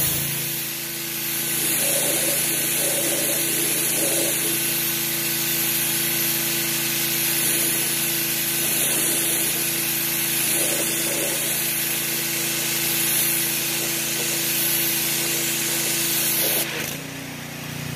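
Pressure washer spraying under a car through an undercarriage cleaner wand, a steady hiss over the pump's steady running tone. The spray cuts off near the end.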